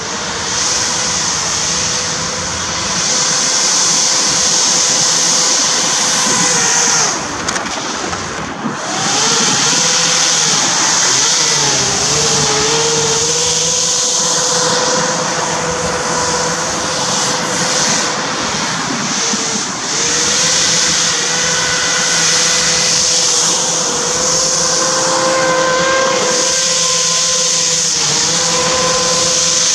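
Battery-powered RC hovercraft's propeller fans running, a steady high whine over a strong rush of air. The whine dips and wavers in pitch twice, about a quarter and then about two-fifths of the way in, as the throttle changes, then holds steady again.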